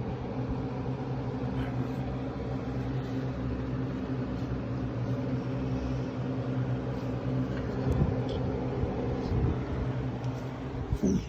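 Steady mechanical hum of a running motor, with a few knocks near the end, after which the hum drops away.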